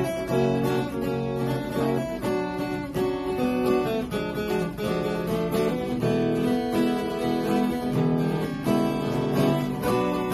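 Two acoustic guitars playing an instrumental passage together, strummed and picked chords changing every second or two.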